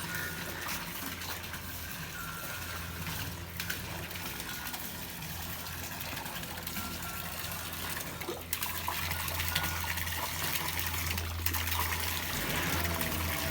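Steady gush of running water over a low, steady hum.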